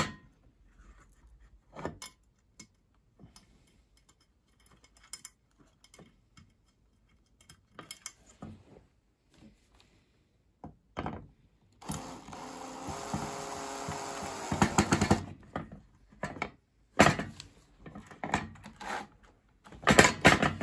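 Hand tools and metal parts of a Morphy Richards 44600 toasted sandwich maker being handled during rewiring: scattered clicks, taps and knocks. A steady noisy sound lasts about three seconds in the middle, and louder knocks come in clusters near the end.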